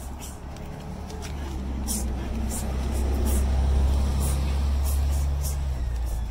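A city bus passing on the nearby road: a low engine rumble that swells, loudest about four seconds in, then eases off.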